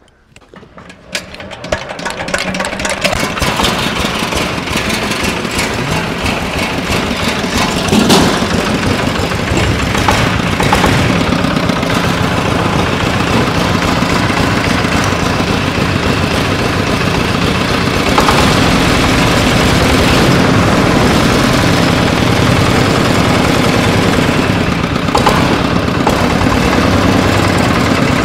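A small single-cylinder diesel engine on a homemade cart starts up and runs steadily with a fast even beat, with a brief louder surge about eight seconds in.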